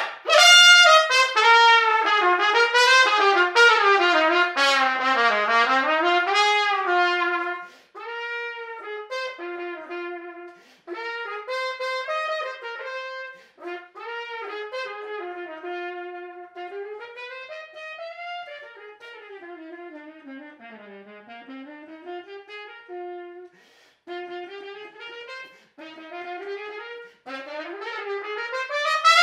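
Trumpet playing melodic, jazz-like runs, loud and bright for about the first seven seconds. It then turns much quieter and duller as the bell is played deep inside a tube-shaped practice mute (Mute Tube Basic) that cuts the volume. The level rises again near the end.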